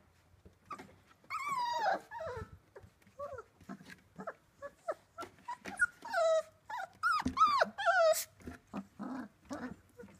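Labrador retriever puppies whining: several high, drawn-out whines that fall in pitch, one about a second and a half in and a quick run of them in the second half.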